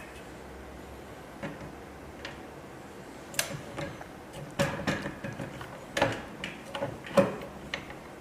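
Irregular sharp clicks and light knocks of bolts, tools and metal frame parts being handled while bolts are fitted into a 3D printer's frame, growing busier from about three seconds in.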